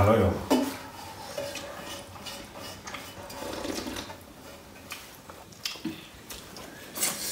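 Sounds of a dal bhat meal: a few scattered clinks of dishes and plates, with liquid dal being sipped.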